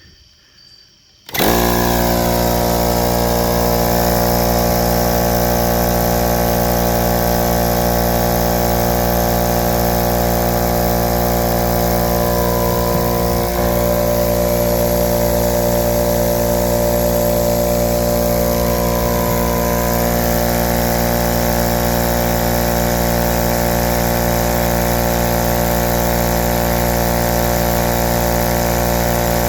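Husky 33-gallon 1.7 HP electric air compressor starting about a second in and running steadily, its motor and pump charging the tank from 0 psi.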